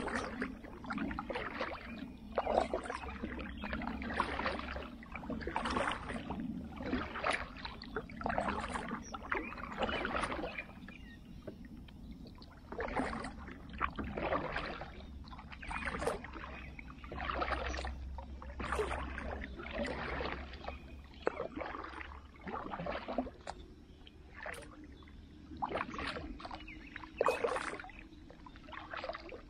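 Kayak paddle strokes through pond water, a splashing swish about once a second, with a short pause about halfway through and fewer strokes near the end.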